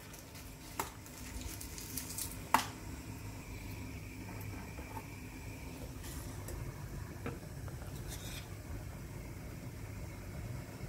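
Incense charcoal tablets being handled, first in their foil wrapper and then in metal tongs at a gas hob burner: a few sharp clicks and taps, the loudest about two and a half seconds in, over the steady low hiss of the lit burner.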